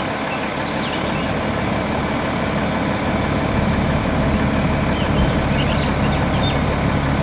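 Diesel engine of a Volvo tipper truck running steadily while the hydraulic ram raises the dump body, growing slightly louder as the bed tilts up.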